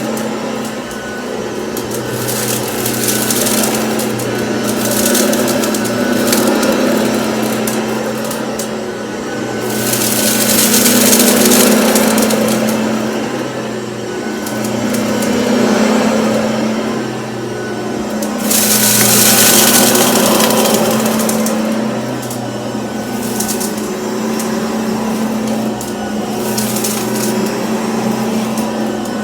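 Cordless stick vacuum running on carpet. Under its steady motor hum, a rushing hiss swells and fades every several seconds as the head is pushed back and forth. Dry oatmeal crackles as it is picked up.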